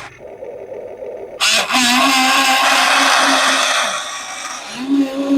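Small electric motor and gearbox of an RC construction vehicle whining: it spins up about a second and a half in, runs steadily for a couple of seconds and winds down, then starts up again near the end.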